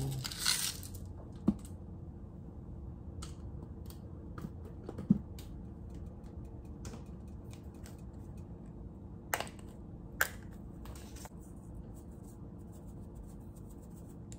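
Seasoning shakers handled over a glass mixing bowl: a short rustling shake in the first second, then a few scattered sharp clicks and taps over a low steady hum.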